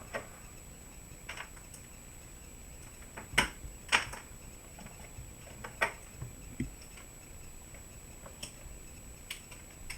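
Scattered light clicks of metal tweezers handling a small surface-mount IC chip and setting it down on a circuit board, about eight in all, the sharpest a pair a little over three and four seconds in.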